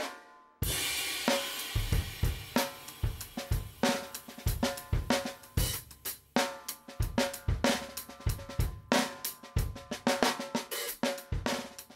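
Background music with a drum kit: a cymbal crash about half a second in, then a steady beat on bass drum, snare and hi-hat under a held tune.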